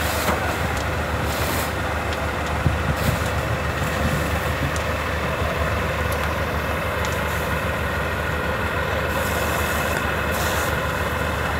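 A heavy vehicle engine runs steadily under outdoor noise, with a couple of brief knocks about three seconds in.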